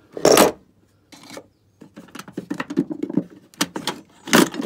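Hand tools being moved about in a wooden toolbox: a loud knock just after the start, a run of irregular clunks and rattles, and another loud knock near the end.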